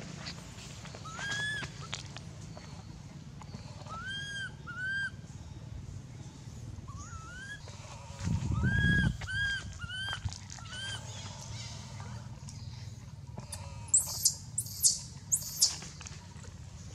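Baby long-tailed macaque crying: repeated short, squeaky, rising-and-falling cries, often in twos and threes. A low rumble comes around the middle, and near the end four loud, much higher-pitched squeals.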